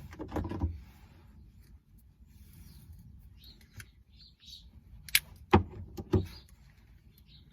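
Close handling sounds of insulation tape being pulled off the roll and pressed onto cardboard, with three sharp cracks about five to six seconds in.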